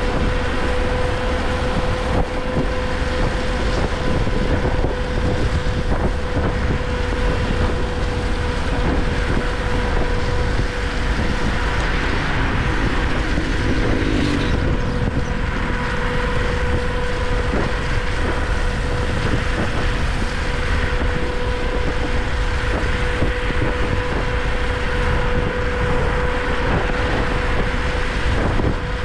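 Kaabo Mantis King GT electric scooter riding at a steady speed on a wet road: wind rushing over the microphone and tyre noise, with a steady, even-pitched whine from the hub motors.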